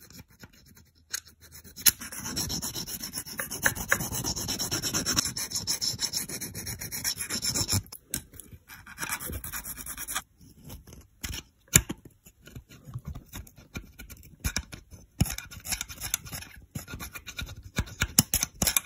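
Close rubbing and scraping, continuous for the first several seconds and then broken up with scattered sharp clicks.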